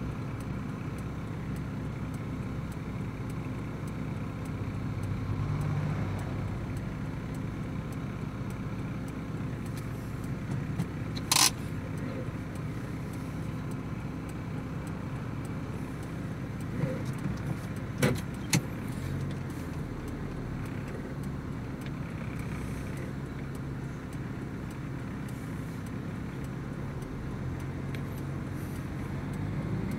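Steady low hum of a motor vehicle's running engine, with cars passing by on the highway. There is a sharp knock about a third of the way in and two more close together a little past the middle.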